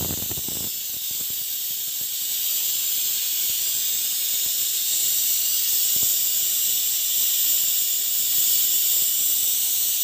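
Pressure cooker's whistle weight venting steam with a steady, high hiss: the cooker is up to pressure and blowing one of the whistles by which the curry's cooking is counted.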